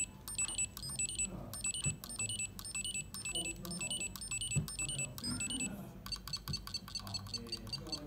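The small built-in speaker on a NovelKeys x Kailh Big Switch LED circuit board plays electronic beeps: a short stepping tune of high tones, repeated over and over. About six seconds in, it changes to a quicker run of higher ticking beeps.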